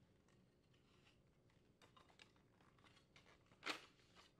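Quiet handling sounds: faint clicks of a metal refrigerator crisper drawer slide rail being released from its plastic support, with one short, louder scrape-click near the end as the rail comes free.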